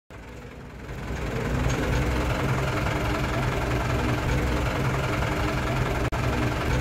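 Idling 3.9-litre diesel engine of a Mitsubishi Colt Diesel truck, a steady rumble that grows louder over the first second or so and briefly cuts out about six seconds in.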